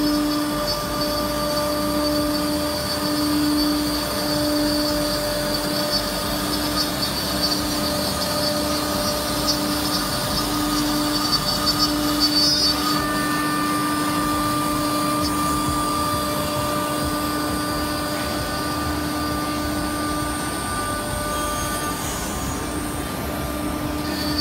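Spindle of a SEMAC SM-1325R1B CNC router running as its bit routes grooves into a melamine-faced panel: a steady machine tone over a hiss of cutting. The tone pulses about once a second for the first half, then holds steady.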